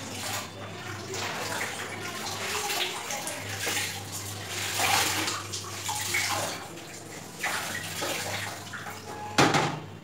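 Wet cotton clothes being dipped, squeezed and worked by hand in a plastic bucket of starch water, with irregular sloshing and splashing. There is a sharp slap near the end.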